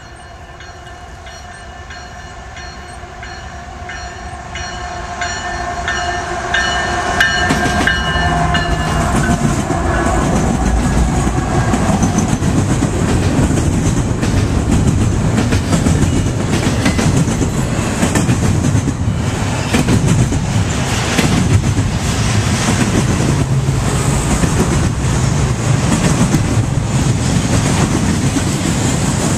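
Freight locomotive horn sounding as the train approaches, its pitch dropping slightly as the locomotive passes about eight seconds in. Then the loud, steady rumble and clickety-clack of double-stack container cars rolling past.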